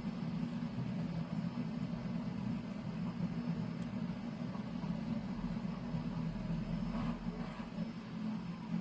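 A steady low droning hum.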